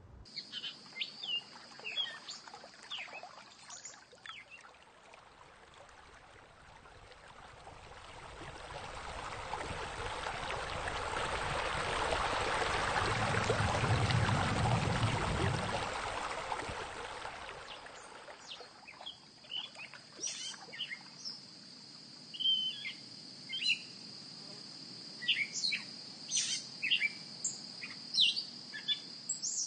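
Ambient soundscape of birds chirping over a steady high insect trill. In the middle the birds drop away while a rushing of running water swells up and fades out, and then the chirping and the trill return.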